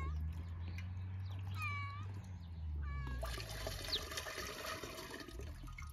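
A domestic cat meowing twice, short bending calls about two and three seconds in. Under the calls, water is poured from a plastic jug through a sieve into a cast-iron pot.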